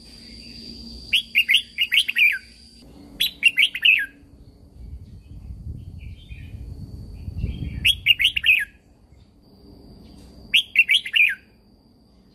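Red-whiskered bulbul singing four short, lively phrases, each a quick run of bright, falling notes, with pauses between them. A faint, steady high-pitched whine runs behind the song.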